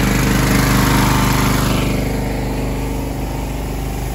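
Pressure washer's gas engine running steadily, with a hiss over it that stops about two seconds in.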